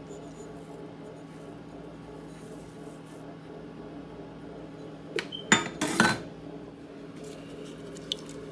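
A quick cluster of clinks and knocks from a kitchen utensil against a cooking pot, about five to six seconds in, over a steady low hum.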